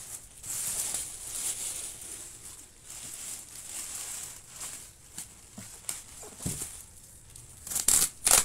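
Black plastic rubbish bag crinkling and rustling in the hands as it is pulled off a parcel, with a few louder, sharper rasps near the end.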